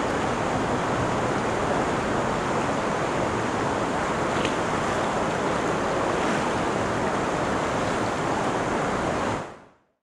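Mountain river rushing steadily over rocks, fading out near the end.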